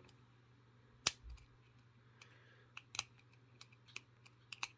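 Small metallic clicks of a lock pick and tension wrench working the pins inside a worn Yale 70mm discus padlock, as the pins are being set. The sharpest click comes about a second in, with more scattered clicks later and a quick pair near the end.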